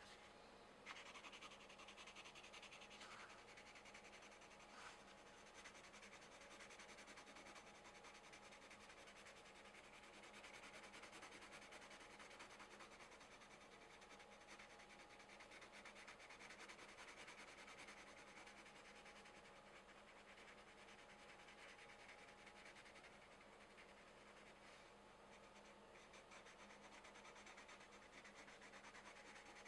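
Colored pencils scratching faintly and steadily across coloring-book paper in continuous shading strokes, with a few small taps in the first few seconds.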